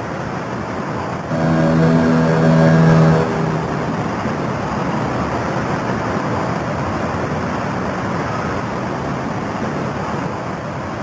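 A ship's horn sounds one deep, steady blast lasting about two seconds, starting just over a second in. Under it and afterwards runs a steady rumbling background of river and traffic noise.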